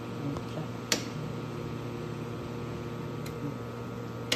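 Steady electrical hum of a laser welding machine, with a sharp click about a second in and another at the end, like the table control buttons being pressed.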